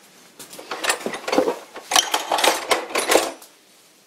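Metal tool parts clinking and rattling against one another as a metal rod is put into a plastic tub of small brass pieces: a quick run of clinks and knocks lasting about three seconds.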